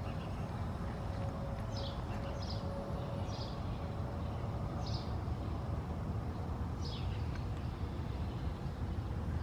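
A bird chirping five times, short falling chirps spread over several seconds, over a steady low rumble.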